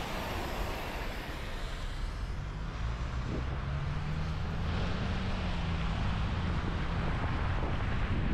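Car driving on a wet, slushy road, with tyre hiss and wind buffeting the microphone. About two and a half seconds in, a low engine hum comes up and rises slightly in pitch as the car pulls away through the intersection.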